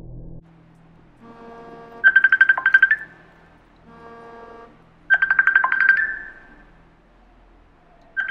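A Samsung smartphone ringing with an incoming Facebook Messenger video call. The ringtone starts about a second in and repeats about every three seconds, three times. Each time a softer lead-in gives way to a quick run of bright chiming notes.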